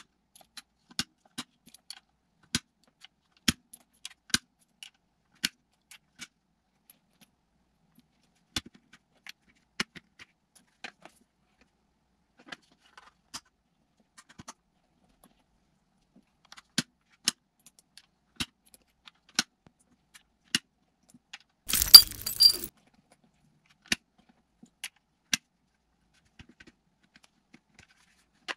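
Steel-cased .223 cartridges being thumbed out of a polymer HexMag AR-15 magazine: scattered sharp metallic clicks and clinks, a second or so apart. Two-thirds of the way through comes a much louder clatter lasting about a second.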